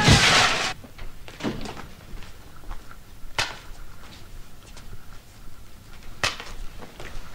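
Music cuts off about half a second in. It is followed by a quiet stretch with a few scattered clicks and knocks, two of them sharper, about three and six seconds in.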